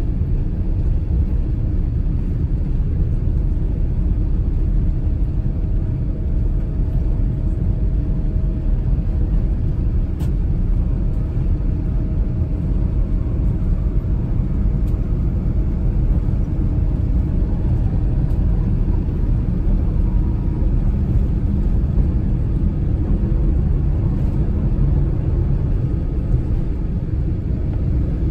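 Steady low rumble of a Boeing 787 Dreamliner heard from inside the economy cabin as it taxis at night, engines at low power with the wheels rolling. A faint steady hum sits over the rumble in the first half.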